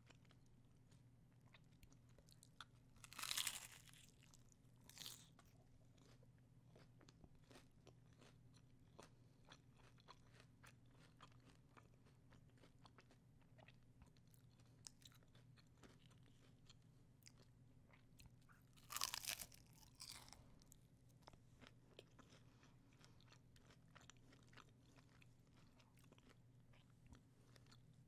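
Close-miked bites into crunchy taco shells: two loud crunches about 3 and 19 seconds in, each followed by a smaller one, with soft chewing clicks in between.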